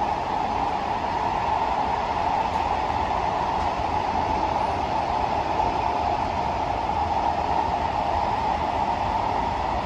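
Steady running noise inside the cabin of a Kawasaki–CSR Qingdao Sifang C151B electric metro train travelling at speed: a constant rush of wheels on rail with a hum that stays even in pitch and level.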